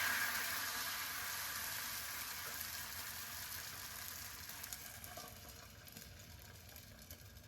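Food sizzling as it fries in a hot pan, loud at first and slowly dying down, with scattered small crackles.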